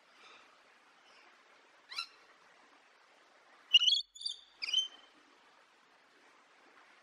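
A bird calling: one short call about two seconds in, then a quick run of three or four sharp, high chirps near the middle, over a faint steady hiss.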